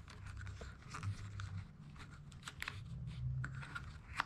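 Faint handling noises: scattered light clicks and rustles of hands working a tail-light wire and plug against a plastic rear fender, over a low hum.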